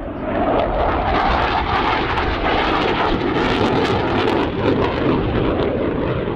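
Saab 35 Draken's turbojet running on afterburner as the jet climbs away: a loud, steady jet roar that swells about half a second in, with sharp afterburner crackling through the middle.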